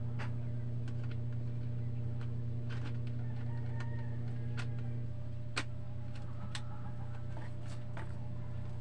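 Scattered clicks and light knocks of a DSLR camera body and zoom lens being handled, with one sharper click a little past halfway, over a steady low hum. A few faint short calls sound in the background.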